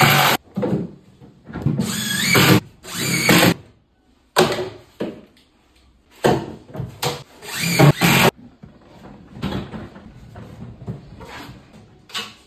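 Cordless drill-driver running in repeated short bursts of up to about a second, its motor pitch rising as it speeds up. Quieter handling knocks follow near the end.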